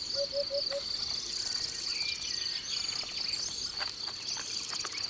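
Spring woodland ambience: insects chirring steadily in a high, even pulse, with scattered birdsong and a quick run of four short low notes in the first second.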